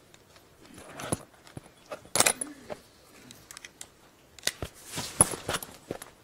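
Handling noise from a microphone being passed over and fitted: irregular rustles, scrapes and sharp clicks, with a louder scrape about two seconds in and a cluster of knocks later on.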